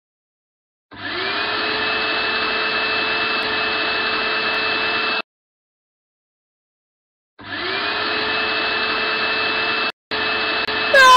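Vacuum cleaner motor switched on, spinning up with a rising whine and then running steadily, cut off abruptly after about four seconds; after a pause it spins up and runs again, with a momentary break near the end.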